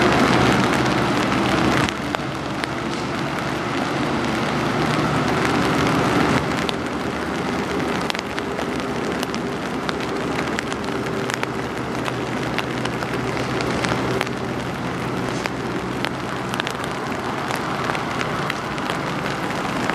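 Raindrops ticking steadily on an umbrella, over the low steady drone of a passing bulk freighter's engine, which fades as the ship moves away.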